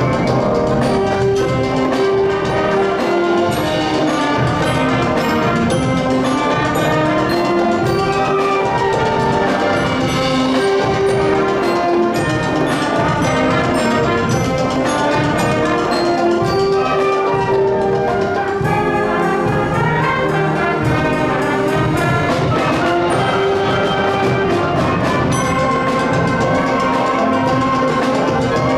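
High school concert band playing live, brass carrying a sustained melody over percussion.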